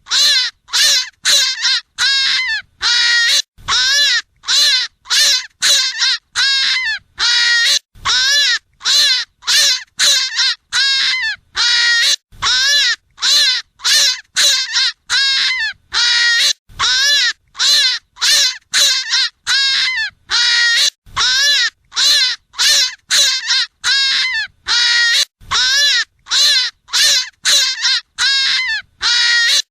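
Hare hunting call: a rapid string of short, squealing calls, each rising then falling in pitch, about two a second, repeated without letup.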